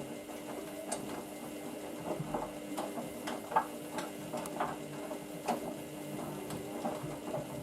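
Hoover washing machine running a steady mechanical hum with irregular light clicks and ticks; the hum cuts off just at the end.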